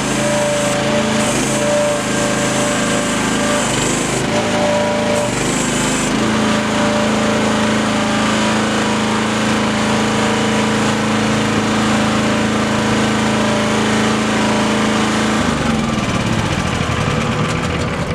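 Miva VA08 mini excavator's engine running steadily, with an intermittent high hiss over the first few seconds. Its revs drop a few seconds before the end.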